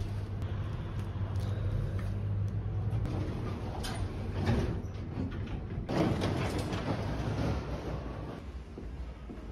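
Lift cabin humming steadily as it runs, with its sliding doors rumbling open about halfway through. The hum fades out near the end.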